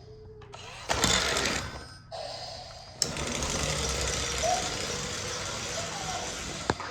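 Small electric motor and gears of a remote-control Thomas the Tank Engine toy whirring as it drives. It runs in stretches that start and stop, the longest going steadily for about four seconds from three seconds in.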